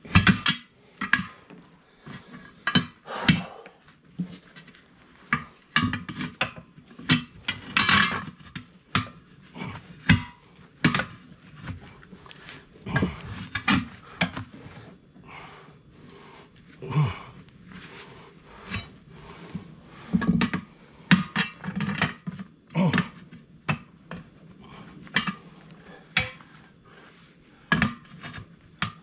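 Steel tire irons clanking and scraping against a steel tractor wheel rim and a manual tire-changer stand as a new R-1 tractor tire's bead is levered on by hand. Irregular sharp metal knocks come every second or so.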